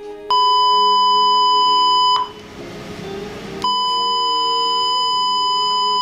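Ship's public-address alert tone: two long, steady electronic beeps, the first about two seconds and the second about three, signalling an announcement from the officer of the watch.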